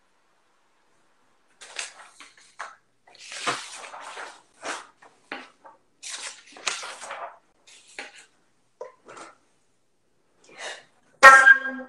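A flutist's short, breathy bursts of air, hissing and irregular, starting after about two seconds. Near the end a loud flute note with overtones sounds.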